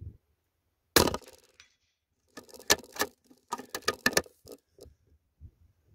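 A single shot from a .22 rimfire rifle firing subsonic rounds about a second in, followed from about two to five seconds in by a series of small metallic clicks and clacks as the action is worked to chamber the next round.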